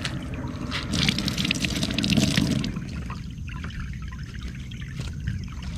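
Water pouring and trickling from a wet cleaning rag, loudest for about a second and a half starting about a second in, then settling to a quieter wash of water.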